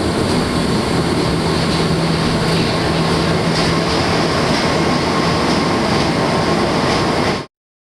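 Electric rack railway railcar running uphill through a tunnel, heard from inside the passenger car: a loud, steady rolling and running noise with a low hum. It stops abruptly near the end.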